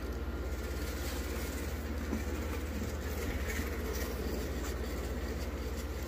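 A 1/24-scale slot car fitted with a new electric motor runs on a plastic slot-car track, giving a steady mechanical buzz with a fast, even rattle.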